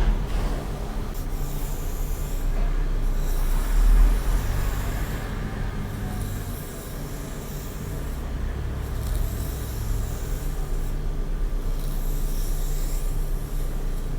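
Slow strokes through hair close to the microphone: about five long, soft hisses, each lasting a second and a half or so and coming about every three seconds, over a steady low rumble.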